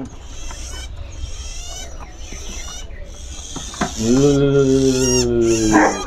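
Many caged songbirds chirping and twittering in quick, high calls. Near the end a steady, low, voice-like tone is held for about two seconds, with one sharp high call over it.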